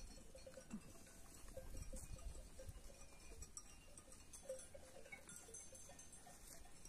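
Near silence with faint, scattered clinks of sheep bells from a grazing flock.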